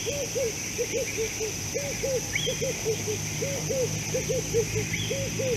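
An animal calling over and over: short arched notes at one low pitch, bunched in twos to fours, with a few brief higher chirps and a steady high-pitched drone.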